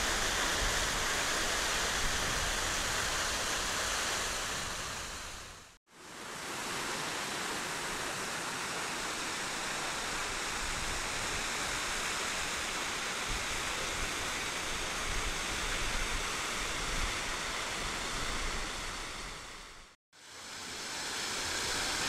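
Steady rushing and splashing of a public fountain's powerful sprays. The sound briefly fades to silence and back twice, about six and twenty seconds in.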